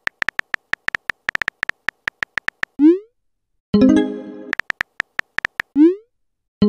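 Synthetic phone-keyboard typing clicks in quick irregular runs, each run ended by a short rising pop as the message is sent, followed by a chime of several stacked tones; the cycle runs about twice.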